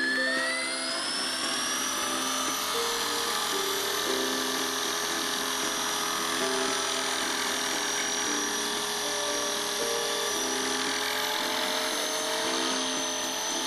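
Esky D-700 RC helicopter's electric motor and rotor whining as it spools up and lifts off, the pitch climbing and then levelling off within the first couple of seconds into a steady high whine, heard from the camera slung under the helicopter. Synthesized background music plays underneath.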